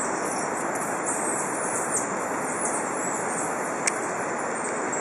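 Tropical rainforest ambience: a steady hiss under a run of high-pitched, sweeping chirps repeating every half second or so, over a thin steady high whine; a single click about four seconds in.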